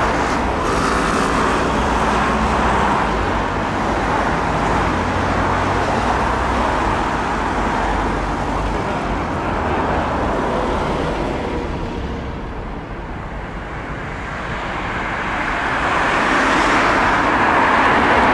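Steady road-traffic noise mixed with the distant jet roar of a Boeing 747-400 on final approach; it dips a little past the middle and swells again near the end.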